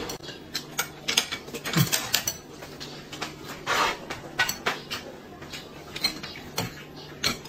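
Chopsticks clicking and scraping against ceramic bowls and dishes while eating: a scatter of short, irregular light clinks.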